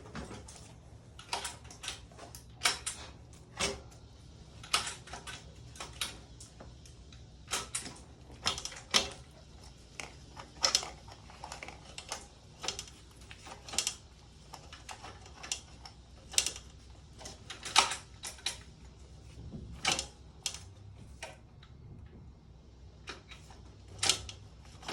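Irregular sharp metallic clicks and clanks, roughly one or two a second, from hand tools and parts being handled on a motorcycle after the rear-wheel reassembly.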